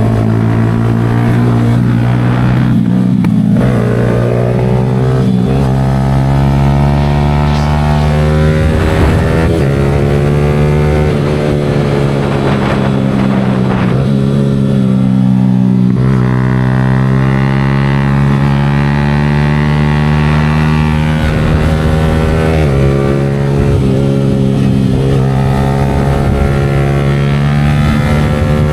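Yamaha R15 V4's single-cylinder engine through an aftermarket Leo Vince exhaust, pulling under acceleration on a ride. The pitch climbs and drops several times as it shifts up through the gears.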